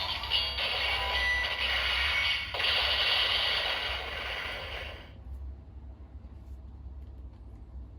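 Amazing Hercules Progrisekey toy playing an electronic sound effect with music through its small speaker. The sound changes about halfway through and cuts off suddenly after about five seconds, leaving a low hum.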